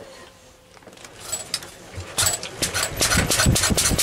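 Lister petrol stationary engine being wound over on its starting handle and catching: a few faint strokes, then it fires about two seconds in and settles into a fast, even beat of firing strokes.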